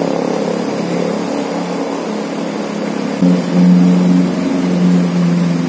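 A motor vehicle's engine hums steadily and grows louder about three seconds in, over the hiss of the flowing river.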